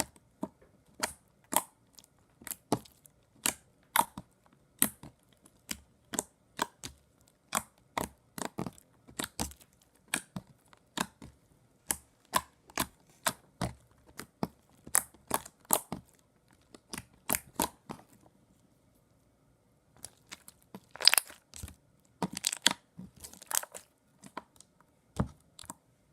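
Slime being poked, pressed and stretched by hand, making short, sharp crackling pops and clicks, about one or two a second in small clusters, with a brief pause about two-thirds of the way through.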